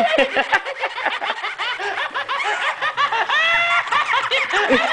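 Tickle Me Elmo plush toy laughing through its built-in speaker while it shakes and rolls on its side: a long, unbroken run of rapid, high-pitched giggling, with a drawn-out laugh note about three and a half seconds in.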